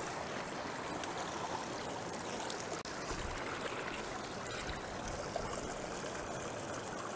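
Shallow river water running over and between rocks: a steady rushing wash of noise.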